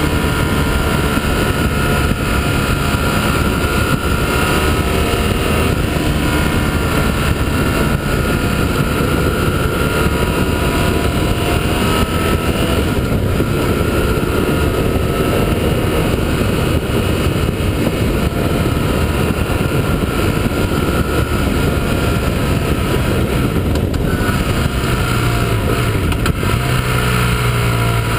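Motorcycle engine heard from the rider's own bike under way, with heavy wind rush on the microphone. The engine note rises and falls with the throttle, and near the end it settles to a lower, steady note.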